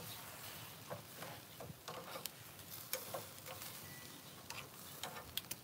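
Meat sizzling on a barbecue grill, with metal tongs clicking against the grate now and then as pieces are turned.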